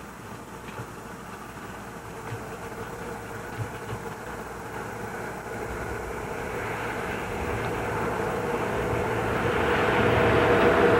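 A motor vehicle approaching, its engine hum with a steady tone growing gradually louder.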